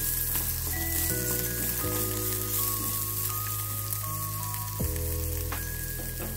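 Oil sizzling in a kadhai as cashews, almonds, ginger and a green chilli fry in it, with a few light spatula scrapes, under background music of slow held notes.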